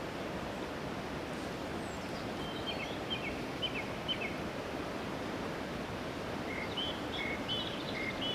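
Small birds chirping in short, high calls, one cluster about two and a half seconds in and another near the end, over a steady rushing background noise.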